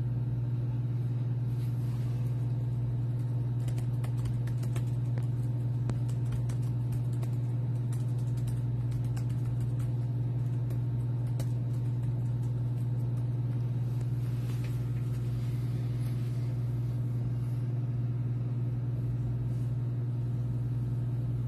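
A steady low hum that does not change, with faint scattered clicks over it.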